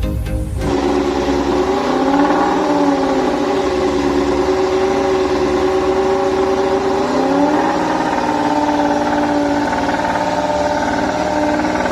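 Racing motorcycle engine running at steady high revs, its pitch rising about two seconds in and again about seven seconds in.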